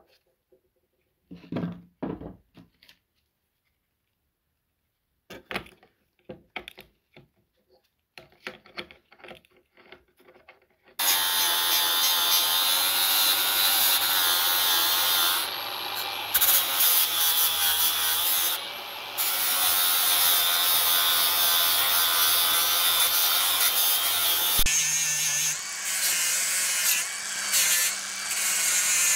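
A few scattered clicks and knocks of handling, then, about eleven seconds in, an angle grinder starts grinding the steel of a sledgehammer head. It makes a loud steady whine with brief dips now and then.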